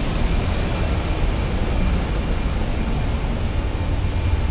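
Steady low rumble of an airliner parked at a jet bridge, with a faint, constant high-pitched whine above it.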